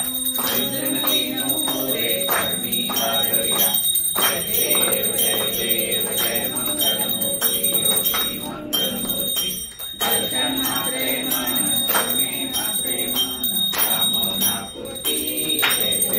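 Small brass puja hand bell rung steadily and rapidly, over a group of voices singing or chanting an aarti. The ringing and singing pause briefly a few times.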